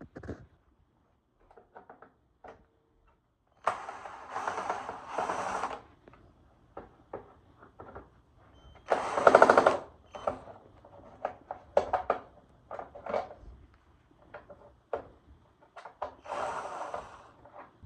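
Hand work on parts during a motorcycle restoration: scattered sharp clicks and knocks, with three bouts of rough rasping noise lasting a second or two each, the loudest about nine seconds in.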